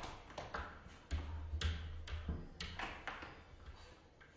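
A cat's paws and claws tapping and scrabbling against window glass and the window frame as it hangs on and tries to climb in: a series of irregular sharp taps with a low thump about a second in.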